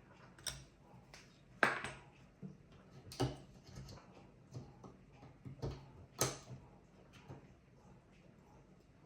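Irregular clicks, taps and light knocks of small plastic and metal computer parts being handled, with a handful of sharper clicks among lighter ticks, the loudest about one and a half seconds in.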